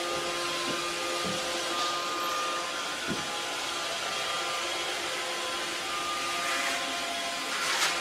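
Robot vacuum cleaner running: a steady whirring hum with a motor whine, and a brief louder noise near the end.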